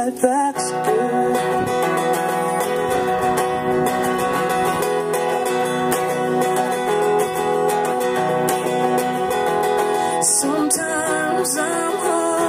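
Acoustic guitar strummed steadily in an instrumental break of a song, with no voice over it; singing comes back in near the end.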